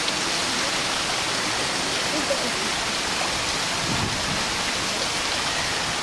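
Waterfall in an otter enclosure, falling water making a steady rushing hiss.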